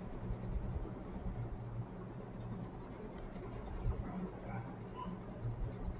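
Colored pencil scratching back and forth on paper as an area is shaded in: a steady, soft scribbling over a low hum.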